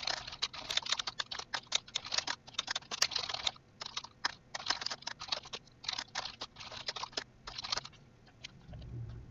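Typing on a computer keyboard: a quick, irregular run of key clicks with short pauses, trailing off near the end.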